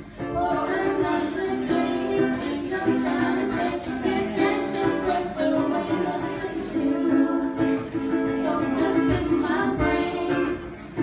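Ukuleles strummed in a steady rhythm with a voice singing a melody over them.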